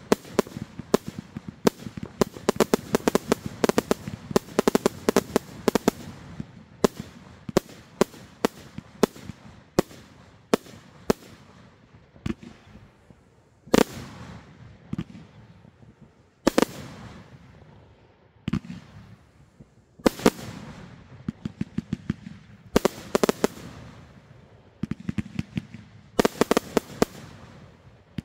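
A 318-shot Corona Killer 2.0 firework cake firing: sharp launch and burst bangs, in a fast rattle for the first several seconds. After that come single shots and quick volleys with brief gaps between, some bangs trailing off into a short fading crackle.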